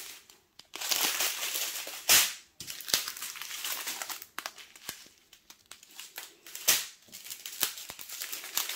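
Small plastic bags of diamond painting drills crinkling and rustling as they are handled and pressed flat, in irregular bursts with louder crinkles about two seconds in and again near seven seconds.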